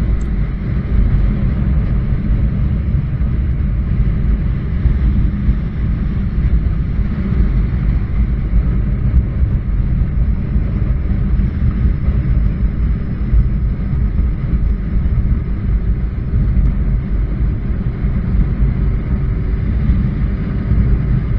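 Honda CBR900RR Fireblade's inline-four running at a steady cruise, with heavy wind noise rushing over the microphone.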